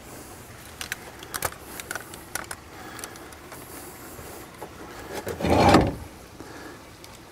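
Small screws and a screwdriver handled on a plywood work table: a few light clicks in the first couple of seconds, then a louder, brief rubbing scrape about five and a half seconds in.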